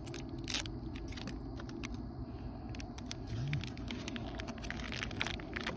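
Foil food sachet crinkling and crackling as it is handled and its contents tipped into a plastic tub, a scatter of short sharp crackles. A steady low rumble runs underneath.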